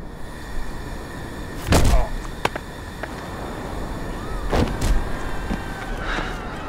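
Film sound effects: a steady low rumble with a heavy thud about two seconds in, a sharp knock soon after, and two more thuds close together past the middle.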